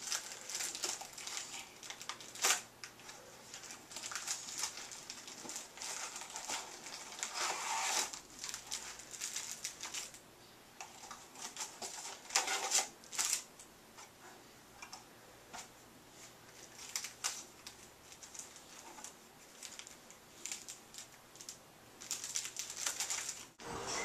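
A small cardboard box being handled and opened by a toddler: scattered light taps, clicks and rustles of card and paper.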